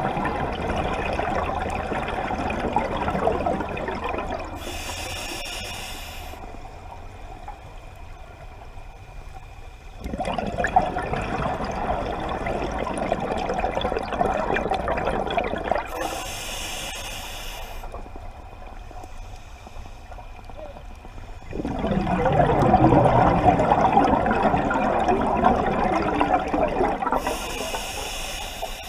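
Scuba diver's breathing through an open-circuit regulator underwater: three long bubbling exhalations, each followed by a short hissing inhalation. The third exhalation is the loudest.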